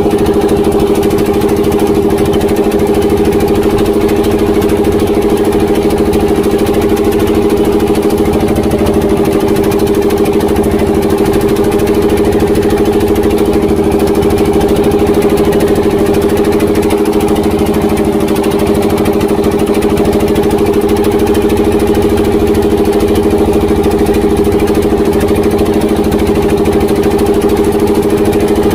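Tianli 1115 single-cylinder diesel inboard engine of a small wooden boat running at a steady, unchanging speed while the boat is under way.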